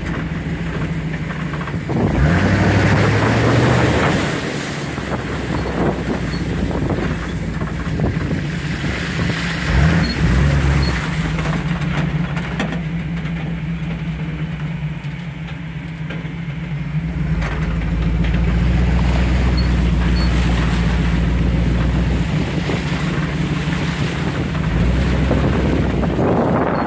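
A vehicle engine running while driving slowly over a rough dirt trail, with knocks and rattles from the bumps. The engine gets louder about two seconds in and again from about eighteen seconds, and there is a sharp knock about ten seconds in.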